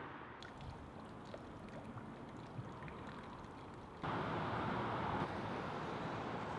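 Quiet outdoor ambience with faint scattered drips, cut abruptly about four seconds in to a louder steady rushing noise of water or distant traffic.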